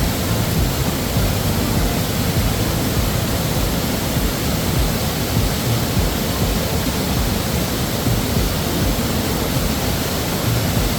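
Steady rushing of river water, an even roar with no breaks.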